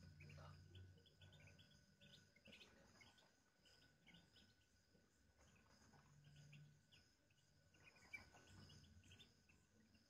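Faint, high-pitched peeping of newborn Muscovy ducklings: many short, irregular peeps.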